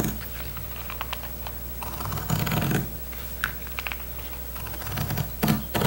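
Pinking shears snipping through white fabric strips: a run of short, crisp cuts coming in several groups with brief pauses between.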